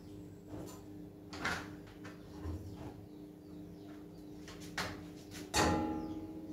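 Metal cookware knocking on a gas stove's grates, with a short scrape about a second and a half in. The loudest is a sharp metallic clank that rings on for about a second, near the end, as the kettle is handled. A low steady hum runs underneath.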